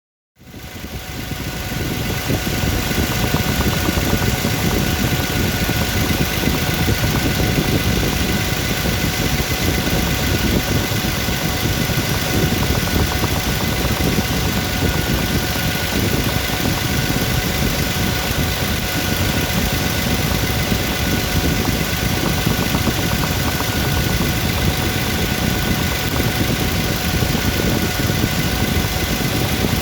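Engine idling steadily with a knock running through the idle, the knock being the fault the recording is made to capture.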